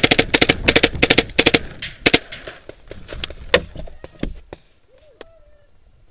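Paintball markers firing in rapid strings of shots. The firing thins to a few scattered single shots and stops about four and a half seconds in.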